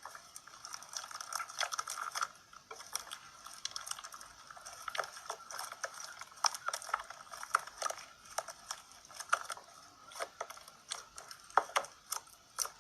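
Slime being squeezed and worked by hand, giving a run of irregular wet clicks, pops and crackles.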